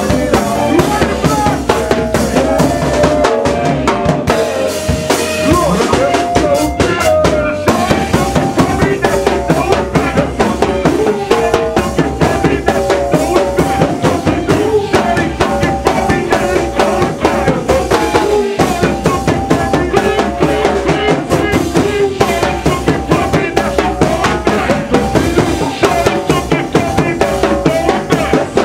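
A live band plays a steady groove: drum kit with bass drum and snare keeping an even beat, under bass guitar and held pitched lines, filling a small practice room.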